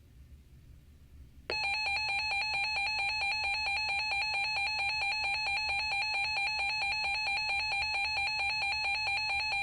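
Weather radio alert alarm starting about one and a half seconds in: a loud, high-pitched electronic tone pulsing rapidly and evenly. It signals that a weather warning has been received, ahead of the spoken bulletin.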